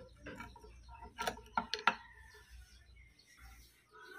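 A few sharp metallic clicks and taps from tools and parts on an old sewing machine being serviced, three of them in quick succession about a second and a half in.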